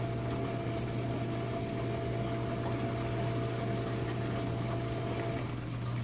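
Jenn-Air dishwasher running with its pump motor humming steadily and water washing around inside the tub, sounding normal. A higher hum drops out about five seconds in.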